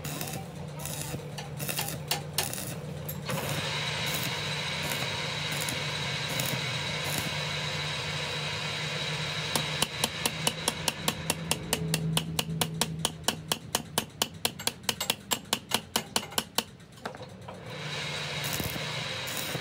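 Hammer striking metal in a quick, even run of blows, about four a second, for some seven seconds starting about halfway in, over a steady hiss and low hum.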